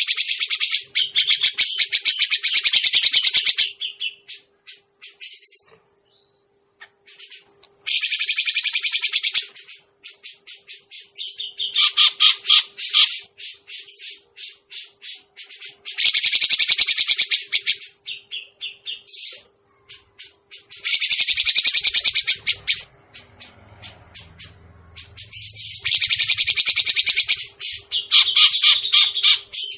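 Recorded calls of the grey-cheeked bulbul (cucak jenggot) played as a bird-trapping lure. Loud bursts of fast, harsh chattering notes, each a couple of seconds long, repeat every few seconds with scattered single notes in between.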